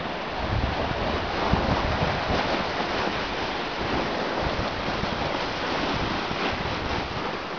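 Wind blowing across the microphone: a steady rushing noise with uneven low buffeting rumbles.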